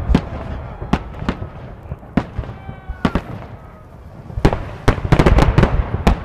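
Fireworks salute shells bursting overhead: a series of sharp bangs at irregular intervals, with a quick run of them shortly before the end.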